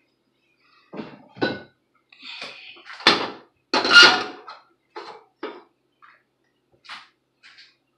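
Cast-iron skillet and other cookware being handled and set down on the stove: a string of knocks and clanks. The loudest two come about a second apart near the middle, and one of them rings briefly like metal.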